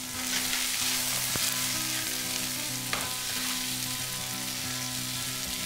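Chopped courgettes sizzling steadily as they sauté in olive oil in a frying pan, turned with a spatula, with a couple of light clicks.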